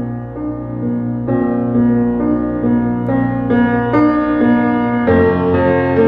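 Instrumental background music: a sequence of held notes changing every half second or so, with a fuller, deeper chord coming in about five seconds in.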